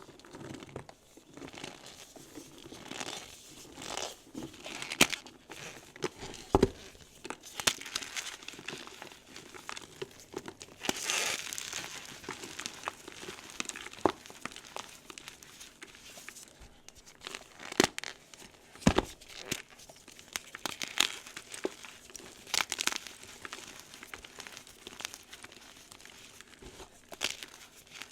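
Gym chalk being crushed and squeezed, giving a continuous irregular crumbling and crinkling with squeaks, broken by several sharp snaps.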